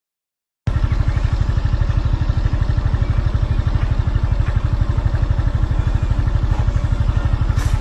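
A motor running steadily with a rapid, even throb, starting suddenly after a brief silence.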